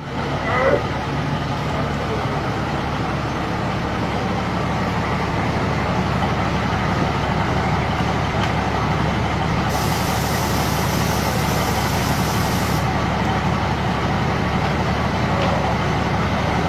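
Steady running rumble of a passenger train, heard from inside the carriage. A sharp high hiss starts about ten seconds in and cuts off about three seconds later.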